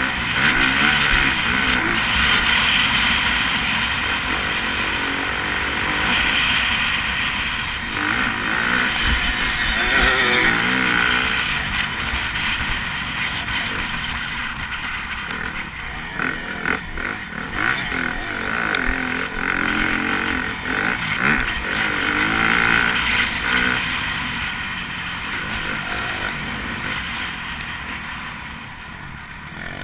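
Dirt bike engine running hard and revving up and down through the gears, heard up close from the bike's own camera.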